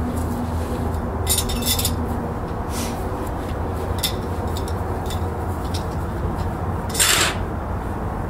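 Metal tent pegs clinking and rattling together in a hand as they are carried, in short jingling bursts, with one louder rasping burst near the end, over a steady low hum.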